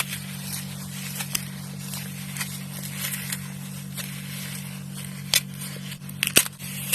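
Dry floral foam crushed and crumbled by hand, crackling with scattered crisp crunches. The loudest crunches come near the end, over a steady low hum.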